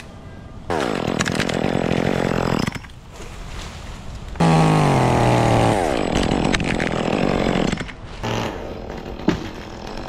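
Chainsaw run up to full throttle for two cuts, about a second in and again about four and a half seconds in, its pitch dropping as each cut goes on, then dropping back to a lower idle near the end.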